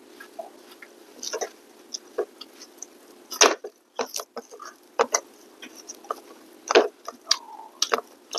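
Eating sounds of people chewing: scattered short smacks and clicks from mouths and fingers working rice, over a faint steady hum.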